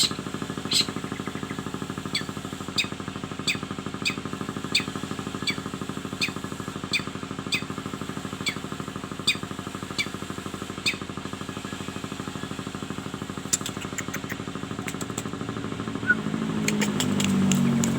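Cendet (long-tailed shrike) calling in short, sharp, falling chirps, roughly one or two a second, over a steady mechanical hum. The chirps stop about eleven seconds in. Near the end a few clicks sound and a louder low sound swells up.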